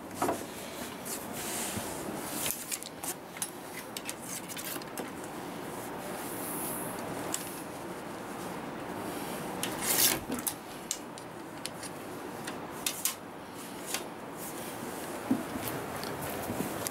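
Ramrod rubbing and scraping inside the barrel of a .45 Hawken muzzleloading rifle as the bullet is rammed down the bore, with scattered clicks and taps and a louder knock about ten seconds in.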